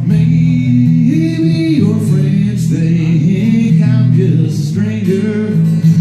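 A man singing a melodic song into a microphone over a guitar played with his feet.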